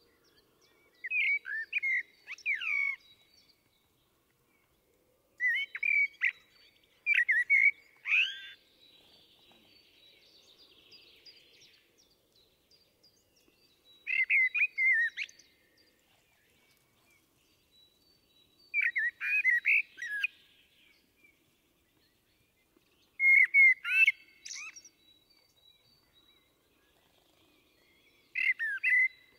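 Common blackbird singing: short phrases of mellow whistled notes, each about two seconds long and often ending in a higher twitter, repeated every four to five seconds with quiet pauses between.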